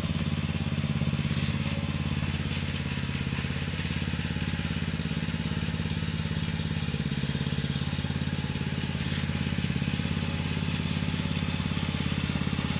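Engine of a small earthmoving machine running steadily, with a fast, even pulsing.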